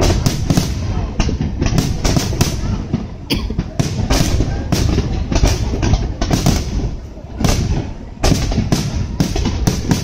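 Fireworks display: a dense barrage of shell bursts and sharp bangs, several a second, over a constant low rumble, with a short lull about seven and a half seconds in.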